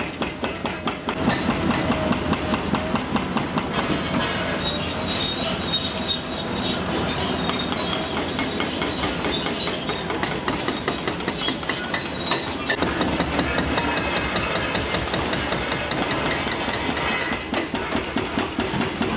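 Liebherr R954C demolition excavator's jaw attachment crunching reinforced concrete and steel rebar, with rhythmic metallic clattering and thin squeals of metal over the running machine.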